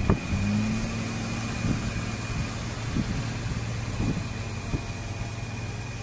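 JCB 426e wheel loader's diesel engine running steadily at a low, even hum, with a thin high whine over it and a few dull knocks.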